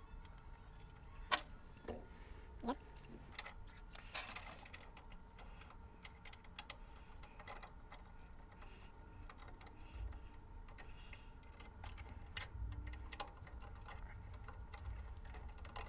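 Faint metallic clicks and clinks of a wrench on screws and nylon-insert nuts as a wire track is fastened to its bracket, with a few sharper clicks in the first few seconds. A faint low hum runs underneath.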